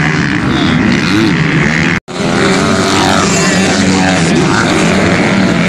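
Several motocross bikes racing, their engines revving up and falling off in overlapping, rising and falling tones. The sound cuts out for a split second about two seconds in.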